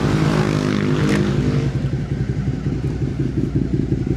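Suzuki SV650's 645 cc V-twin running steadily through a MIVV replica slip-on exhaust with the catalytic converter removed, giving a low, pulsing exhaust note.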